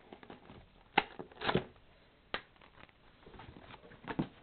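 Cardboard box and packaging being opened and handled: a few sharp clicks and knocks with light rustling between them.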